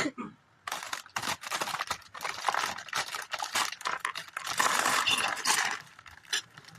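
A plastic bag of Lego pieces being handled, crinkling, with the plastic bricks inside clicking and rattling against each other.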